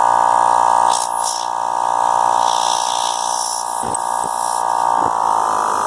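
Harbor Freight 12 V portable tire inflator running, a steady buzzing hum that rises slightly in pitch about five seconds in, with short bursts of air hiss and a few light knocks.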